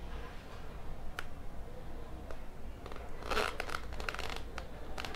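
Handling noises of an action-camera mount being set and pressed onto a helmet over soft epoxy putty: a light click about a second in, a cluster of rustling and scraping in the middle, and a few more small clicks near the end.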